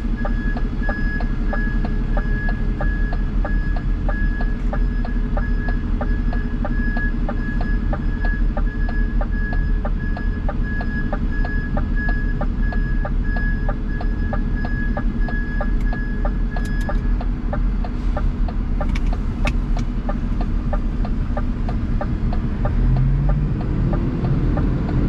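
Diesel engine idling steadily, with a run of evenly repeating electronic beeps over it that stops about seventeen seconds in. A few sharp clicks follow.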